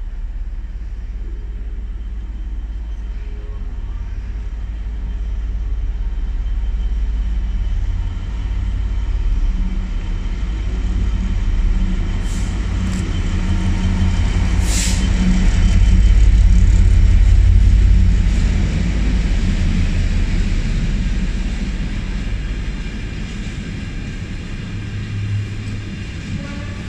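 Freightliner Class 66 diesel locomotive, with its two-stroke V12 engine, running through the station with a freight train. The low engine and wheel rumble builds as it approaches and is loudest as it draws level. A few brief sharp noises come as it passes, and then the wagons rumble by more quietly.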